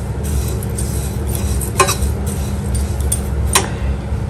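Steel spoon stirring dry-roasting coriander seeds, peanuts and coconut in a steel pan: the seeds rustle and the spoon scrapes, with two sharper clinks of spoon on pan, about two seconds in and again a second and a half later. A steady low hum runs underneath.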